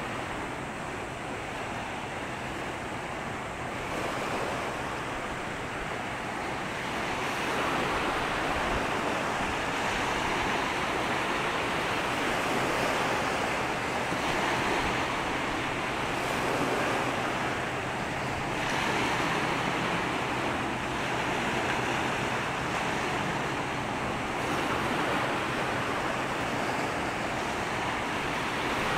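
Water washing and rushing in waves, with wind on the microphone; the noise swells and eases every few seconds.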